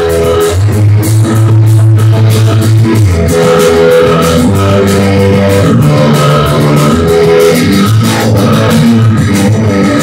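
Rock band playing live: amplified electric guitar, electric bass holding long low notes, and a drum kit, loud throughout.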